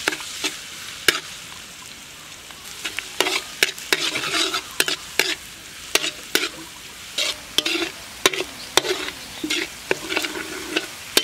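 Chopped garlic sizzling in oil in a metal wok while a metal spatula stirs it, scraping and clinking sharply against the pan at uneven intervals.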